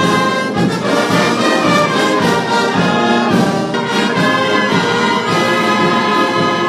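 Brass band music, with trombones and trumpets playing together.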